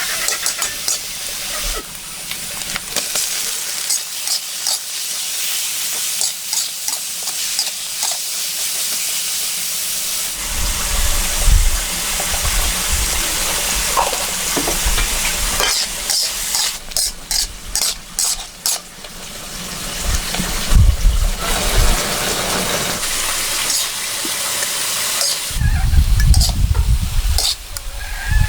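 Food sizzling steadily as it fries in a pan, with scattered clicks of stirring. Low rumbles come and go a few times.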